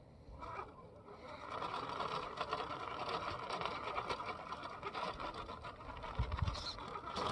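Electric motor and gear drivetrain of an RC rock crawler whining steadily under load as it climbs a steep rock line, with tires scrabbling on the rock. The whine starts about a second in.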